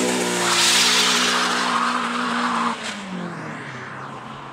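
Renault Clio RS Gordini's 2.0-litre four-cylinder engine revved high and held as the car launches from standstill, with the tyres spinning and scrubbing on the tarmac. About two and a half seconds in, the revs and the tyre noise drop and the car pulls away, fading.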